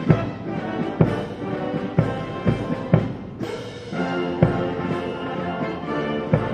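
Military brass band playing a piece with held brass chords over a strong drum hit about once a second.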